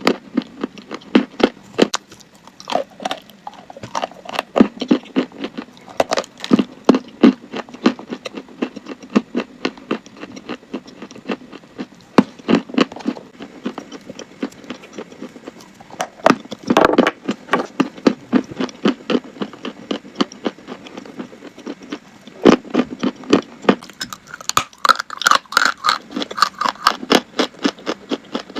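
Chalk being bitten and chewed: a long run of sharp, crackly crunches at an uneven pace, thickening into dense clusters about halfway through and again near the end.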